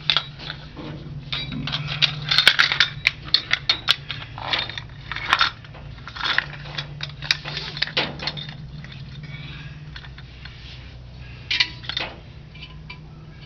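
Needle-nose pliers clicking and clinking against the metal hardware of a drum brake as a stuck part is worked loose, in quick irregular bursts, most through the middle, with a couple more near the end. A steady low hum runs underneath.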